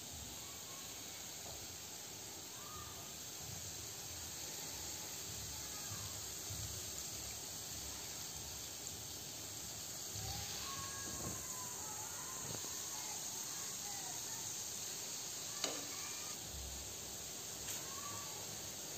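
Gulab jamun dough balls deep-frying in hot oil in a pan, giving a steady sizzle and bubbling. A few short squeaky chirps come through, mostly about halfway in, and a couple of sharp clicks come near the end.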